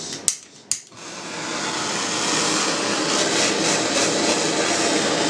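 Two sharp clicks, then a butane culinary torch on a gas canister lights and runs with a steady hiss of the flame, building up over about a second and holding even, as it caramelises sugar on crème brûlée.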